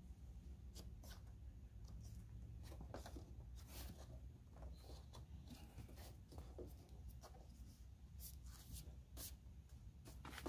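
Faint rubbing and light scraping of fingers pressing an adhesive door sill guard down onto a Jeep Gladiator's door sill: a scatter of short strokes over a low steady hum.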